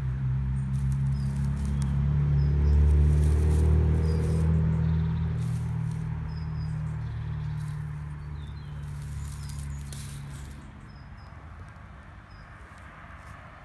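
A low engine drone swells to its loudest about three seconds in, then fades away by about ten seconds. Short bird chirps recur throughout, with light rustling of dry grass underfoot.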